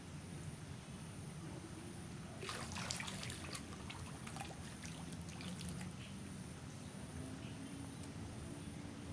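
A hooked Mozambique tilapia (mujair) splashing at the pond surface: a sudden flurry of splashes about two and a half seconds in, thinning to scattered drips and small splashes over the next few seconds.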